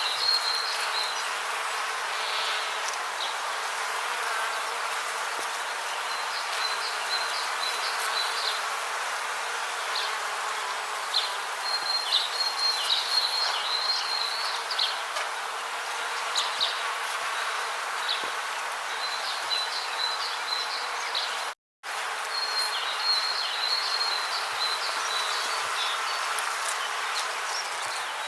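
Rainforest ambience: a steady hiss under bursts of rapid, high-pitched chirping trills that come every few seconds. The sound cuts out for a split second about three quarters of the way through.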